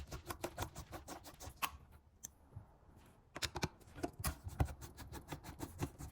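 Screwdriver clicking and scraping in quick, irregular ticks while two small screws are turned out of the rear cover of a car display screen unit.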